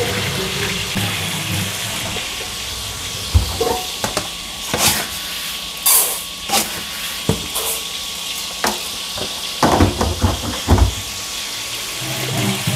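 Kitchen tap running steadily into a cooking pot in a sink as rice is rinsed for cooking, with repeated sharp knocks and clanks of the pot being handled, loudest around ten seconds in.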